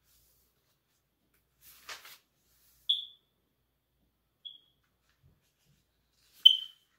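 A brief soft rustle, then three short high-pitched chirps spaced a second and a half to two seconds apart; the middle one is faint and the last is the loudest.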